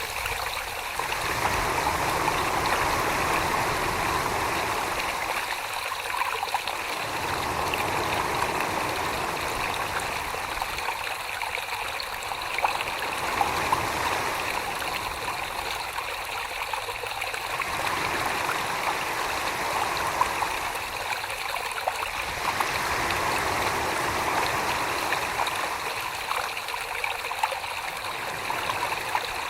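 Wet clay being thrown on a spinning potter's wheel, a steady slushy, watery swishing under the hands. The low, wet part fades and comes back in slow strokes about every five seconds.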